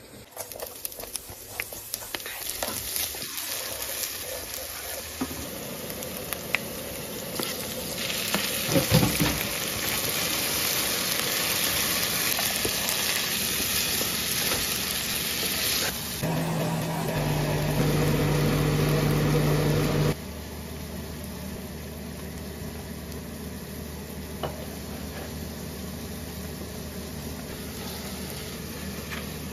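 Diced chicken and sliced onion sizzling in oil in a frying pan while a spatula stirs and scrapes them, with a few clicks early on. The sizzle is loudest through the middle, and a steady low hum sounds for a few seconds after the middle before the level drops suddenly to a quieter sizzle.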